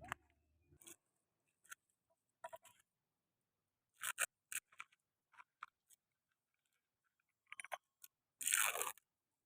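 Faint, scattered scrapes and crunches, like gritty material being worked by hand, with a longer scrape near the end.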